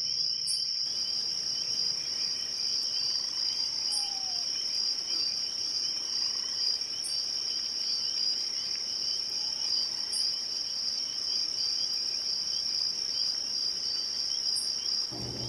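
Crickets chirring in a steady, continuous high trill, with a few faint falling bird calls.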